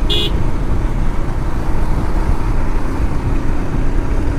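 Motorcycle on the move: a steady rush of wind and road noise with the engine's hum beneath. A brief high-pitched beep sounds right at the start.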